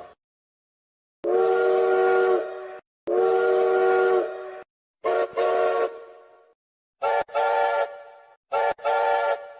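Steam locomotive whistle sounding a series of blasts: two long blasts, a shorter broken blast, then two pairs of short toots. The blasts are separated by complete silence.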